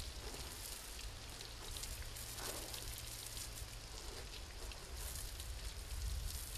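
Water sprayed from an elephant's trunk, falling and spattering on the ground in a steady rain-like patter.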